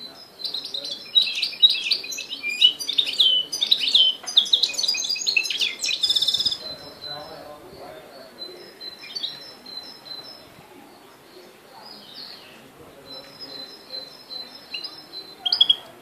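Goldfinch × canary hybrid (a mule) singing: a fast, loud twittering warble for about six seconds, then softer scattered high chirps and thin repeated notes, with one short loud call near the end.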